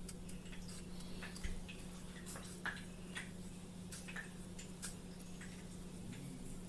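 Faint, irregular gritty clicks and scratches of fingers pressing a fish fillet into semolina on a ceramic plate, over a low steady hum.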